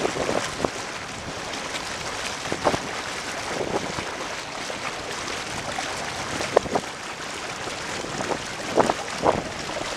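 Water rushing past a small sailboat's hull as it sails on a broad reach, a steady hiss with a few sharper splashes of chop in the wake, and wind.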